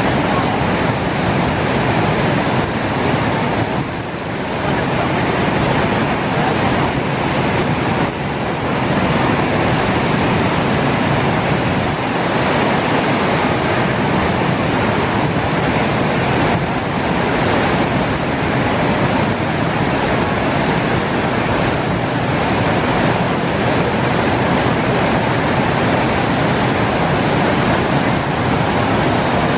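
Wide river waterfall and rapids: a dense, steady rush of white water pouring over rock ledges.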